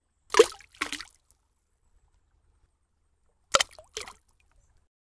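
Cartoon liquid splash sound effects for an egg dropping into a bucket of paint: two quick splashy plops just under half a second in, then another pair of plops about three and a half seconds in.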